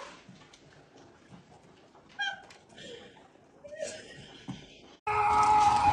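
A cat makes two short, soft vocal calls. Near the end a loud, steady sound with several held tones cuts in suddenly.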